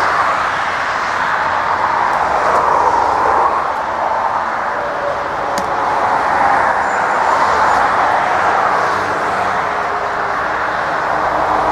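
Twin-engine jet airliner's turbofan engines running at high power as it begins its takeoff roll, a steady rushing noise that swells and eases slowly.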